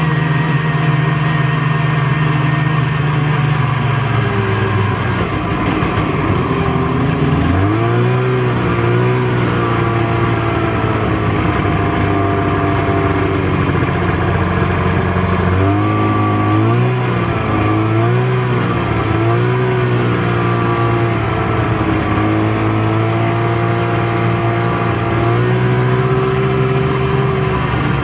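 Snowmobile engine running under way, its pitch steady at first, dropping about five seconds in, then rising and falling with the throttle, most around eight to ten and sixteen to twenty seconds in.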